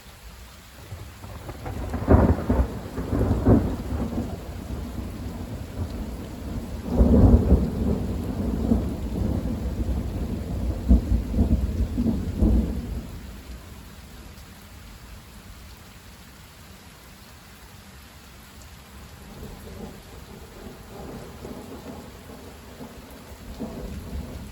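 Thunder rolling through steady rain: a rumble builds about a second and a half in, breaks into several sharp cracks, and dies back to the rain after about thirteen seconds. A fainter rumble of thunder returns near the end.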